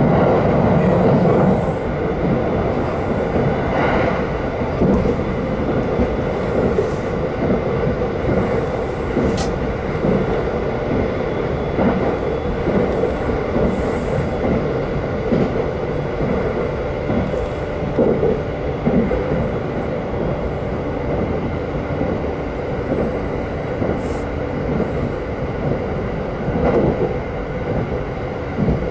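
Inside an electric commuter train running at speed: a steady rumble of the wheels on the rails, with a few brief sharper clacks. It eases slightly about a second and a half in.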